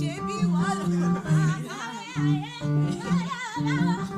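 Band music at a sound check: a voice sings a wordless, wavering melody over instrumental accompaniment with steady low bass notes.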